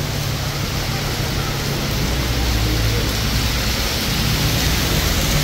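Heavy downpour: rain pouring in a steady, even hiss, with a low rumble underneath.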